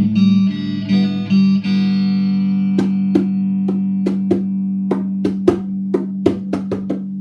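Electric guitar strumming a few chords, then one chord left ringing. Over it a hand drum is slapped with the palm about a dozen times, in a quick uneven rhythm, starting about three seconds in.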